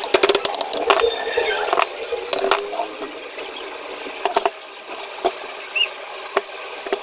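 Ceiling fan parts being handled and fitted together: a quick run of sharp metal clicks near the start, then scattered knocks and scraping.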